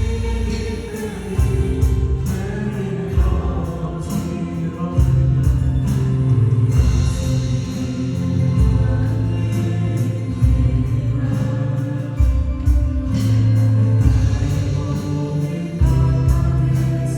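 Contemporary worship band playing a praise song: group vocals over keyboards, a steady drum beat and strong sustained bass notes that change every second or two.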